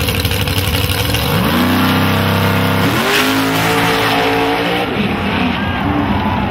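Chevy II Nova drag car launching hard. Its engine revs climb, drop briefly on a gear change about three seconds in and climb again, then the note falls away after about five seconds.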